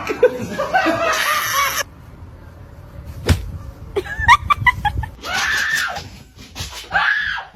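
People laughing and shrieking in short bursts, with a single sharp smack a little over three seconds in.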